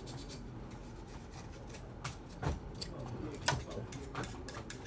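Irregular light clicks and taps of small plastic and metal printer parts being handled, with a few sharper knocks about two and a half and three and a half seconds in.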